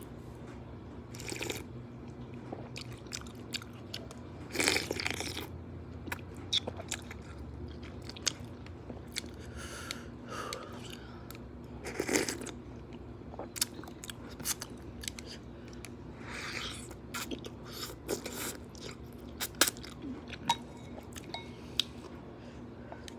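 Close-miked eating of noodles and fresh vegetables: crunching and chewing with many wet mouth clicks and several louder bites, over a faint steady hum.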